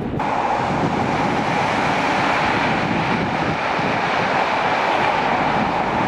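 Steady, unchanging drone of snow-clearing trucks running, cutting in abruptly at the start.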